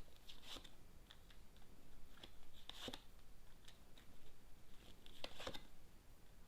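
Faint, scattered small clicks and soft rustles, a few at a time, with no steady sound beneath them.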